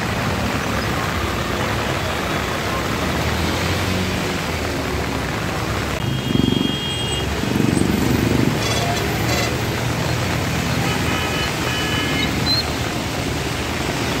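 Busy road traffic in heavy rain: a steady wash of rain and engine noise, with vehicles rumbling past in the middle and short horn blasts twice.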